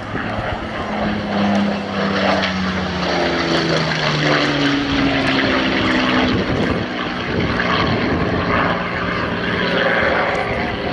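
Supermarine Spitfire Mk V's Rolls-Royce Merlin V12 engine on a flypast. The propeller engine note swells about a second in, then drops steadily in pitch as the aircraft passes.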